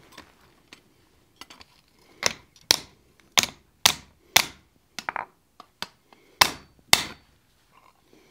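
Hand hammer striking a hot steel bar on an anvil saddle: a run of about ten sharp, ringing blows, roughly two a second, starting about two seconds in, as the bar is straightened.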